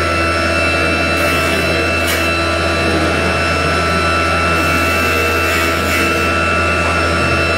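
Schnitzer CNC wood lathe running and cutting a wooden spindle blank: a steady machine whine over a loud, even rush of noise and a low hum.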